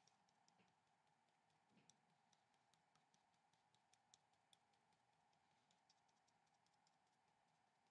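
Near silence: faint, irregular light ticks of a paintbrush tip dabbing paint onto watercolour paper, over a faint steady hum.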